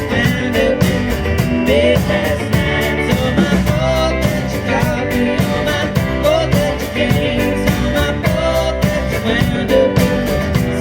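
A live rock band playing a song, with drums keeping a steady beat under the other instruments.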